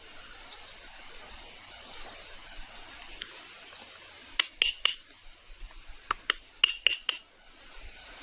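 A quick cluster of sharp clinks and clicks, about a dozen over roughly three seconds in the second half, each with a brief ring.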